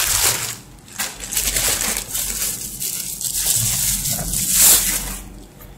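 Plastic bubble wrap crinkling and rustling as it is handled and pulled away from the meter, with a short lull about a second in and the loudest rustle shortly before the end.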